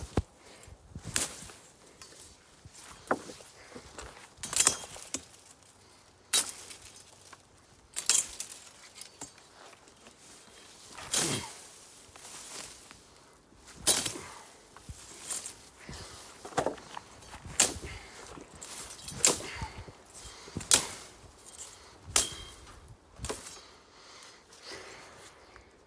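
Sneezeweed stalks being cut down by hand: a string of sharp swishing snaps, roughly one every second or so with short uneven pauses.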